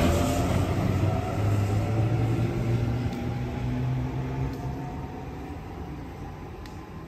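Sydney Trains Tangara double-deck electric train pulling away from the platform, its traction motors giving a faint whine that climbs slightly in pitch as it accelerates. The running noise fades steadily as the train recedes.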